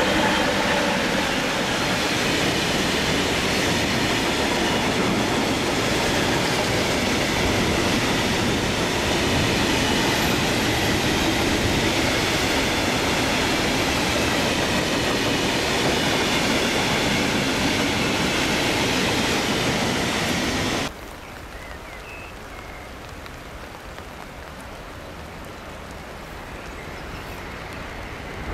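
Freight train of tank wagons rolling past close by at speed, a steady loud rumble of wheels on rail. About three-quarters of the way through it cuts off suddenly to a much quieter background, as a distant train approaches and slowly grows louder near the end.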